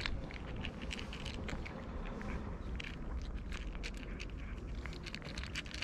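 Cat crunching dry kibble, an irregular run of small crisp crunches and clicks.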